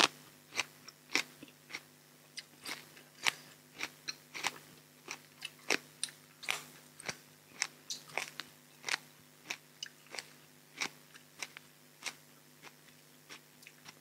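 Close-miked chewing of crisp food, with sharp crunches about twice a second: a person eating spicy raw-shrimp salad with fresh crunchy vegetables.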